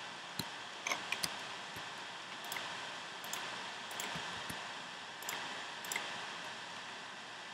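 Scattered light clicks of a computer mouse and keyboard, about a dozen at irregular intervals, over a steady hiss.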